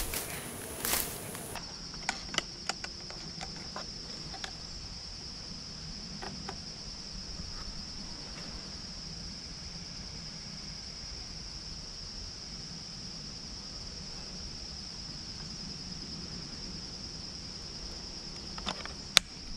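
A steady, high insect chorus drones on unbroken in summer woodland. A few light handling clicks come in the first few seconds, and one sharp plastic click near the end as a trail camera's case is handled on the tree.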